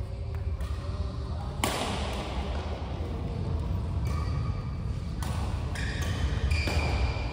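Badminton rackets striking a shuttlecock during a rally: several sharp hits that echo briefly around the hall, the loudest about one and a half seconds in. A steady low hum runs underneath.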